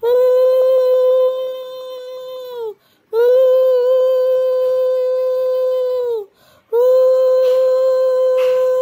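Conch shell (shankha) blown in three long steady blasts with short breaks between, the pitch sagging as each blast dies away.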